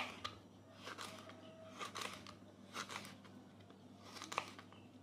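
Kitchen knife slicing a large green chili on a plastic cutting board: short crisp cuts, each ending in a knock of the blade on the board, about one a second.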